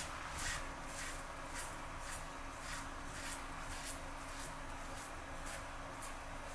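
Double-edge safety razor (Merkur 34G with a Rapira Platinum Lux blade) scraping through lathered stubble in short strokes, about two a second.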